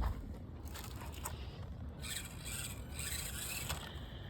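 Axial SCX24 micro crawler working in short spurts: its small brushed motor and gears whirring faintly, with a few light clicks and scrapes of the tyres and chassis over mulch and rock, over a steady low rumble.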